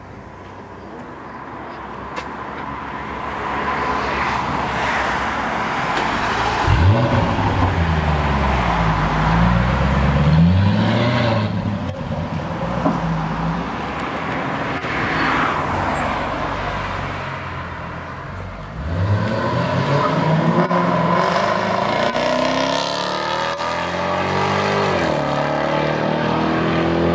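Jaguar F-Type SVR's supercharged 5.0-litre V8 pulling away and accelerating hard. It revs up sharply about seven seconds in and again about nineteen seconds in, each time climbing and dropping in pitch through a run of gear changes as the car drives off.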